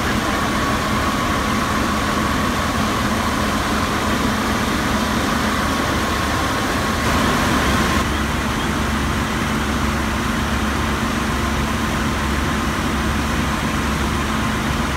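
Fire apparatus engines running steadily at a working fire, a continuous drone under a broad rushing noise. A thin steady whine stops about eight seconds in, where the sound shifts.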